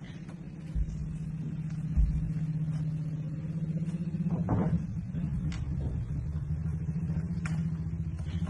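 An engine running steadily with a low hum. Two low thumps come about one and two seconds in.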